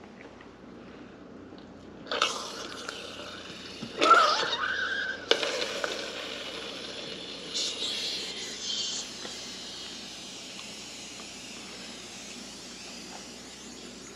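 A metal spoon scraping and knocking against the stainless steel inner pot of an Instant Pot while a pressure-cooked octopus is lifted out of its cooking liquid. The loudest moment is a short scrape with a squeal about four seconds in, and a few lighter scrapes follow.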